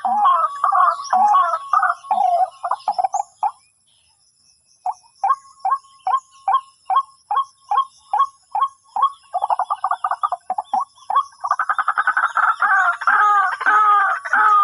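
White-breasted waterhen calls, a repeated croaking phrase. The calls break off about three and a half seconds in, resume as single short notes about two to three a second, and from about eleven seconds run together fast and loud again.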